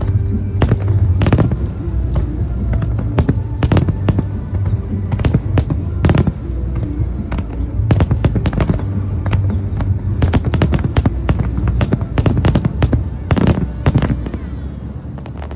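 Aerial fireworks shells bursting in quick, irregular succession: many sharp bangs and crackles over music playing through loudspeakers. The bangs stop about a second before the end.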